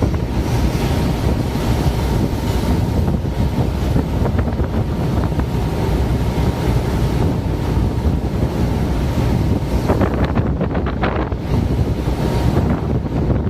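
Strong wind buffeting the microphone over the rush of heavy, stormy seas around a ship, with louder hissing surges of water about ten seconds in and again near the end.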